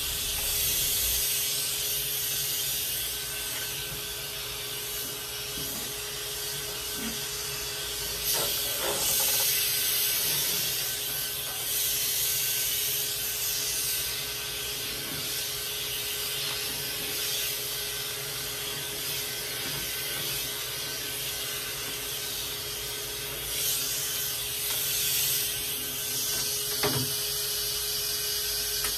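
An electric pet clipper with a clipper-vacuum attachment runs steadily: a motor hum under a continuous suction hiss, with a few brief swells as it works through a Persian cat's coat. The suction draws off the clipped hair and cools the blade. The hiss cuts off right at the end.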